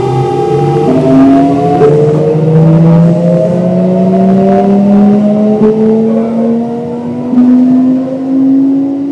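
Kintetsu 1026-series train's Hitachi GTO-VVVF inverter and traction motors accelerating: a loud whine in several tones that jumps to new pitches about a second in and then climbs steadily, stepping again about seven seconds in, with a few brief knocks.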